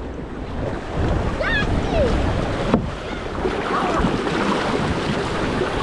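Moving river water with wind buffeting the microphone, faint distant voices, and a single sharp knock about three seconds in.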